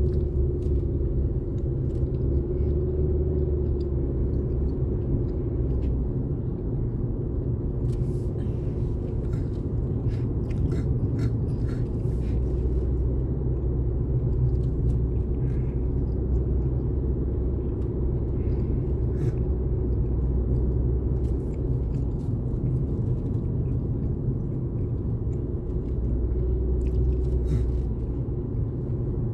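Steady engine and road rumble inside a moving vehicle's cabin, with a few light clicks about eight to thirteen seconds in and again near the end.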